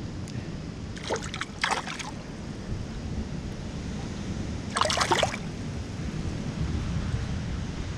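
Water splashing and sloshing in a shallow rock tide pool: two short splashes about a second in and a third about five seconds in, over a steady low rumble.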